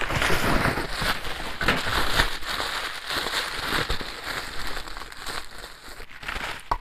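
Plastic bubble wrap crinkling and crackling as it is pulled apart by hand, busiest in the first few seconds and thinning out toward the end.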